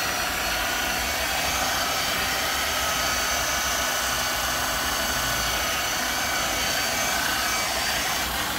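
Corded electric rotary car polisher running steadily while buffing a car's door mirror: a constant motor whine over a rushing hiss.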